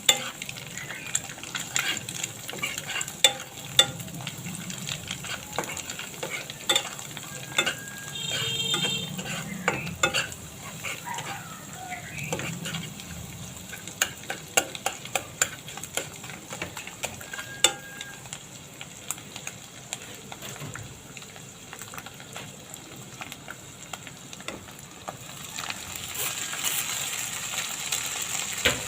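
Stir-fry of egg noodles sizzling in a pan, with a utensil repeatedly scraping and tapping against the pan as it is stirred. The sizzle swells louder near the end.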